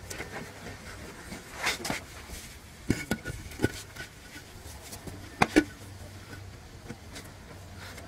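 Heavy stones being set and shifted onto a stone frame: about six sharp knocks of rock on rock, with scraping between them. The loudest pair of knocks comes about two-thirds of the way through.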